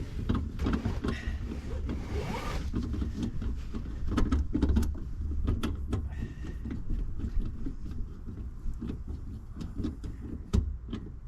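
Irregular clicks and clunks of hand tools and metal parts as a seatbelt anchor is fitted and tightened in a car, over a steady low rumble. A short swishing sound with a rising tone comes about two seconds in.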